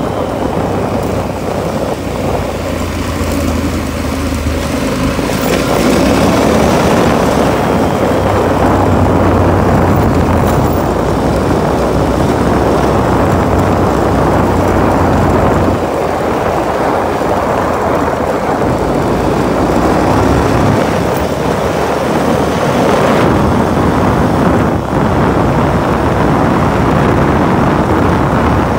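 Off-road vehicle's engine running at speed, mixed with heavy wind noise on the microphone. It gets louder about six seconds in and stays loud.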